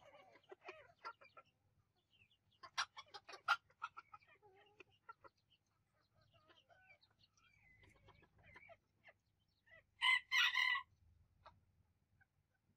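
Bantam chickens clucking, with a quick run of sharp clucks about three seconds in and a short, loud two-part call about ten seconds in.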